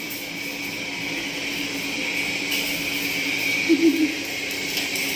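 A steady machine hum with a constant low tone and a hiss. A short vocal sound comes in nearly four seconds in.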